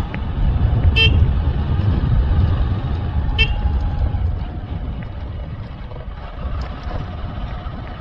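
Two short horn toots, about a second and three and a half seconds in, over a steady low rumble of wind and engine from a moving motorbike.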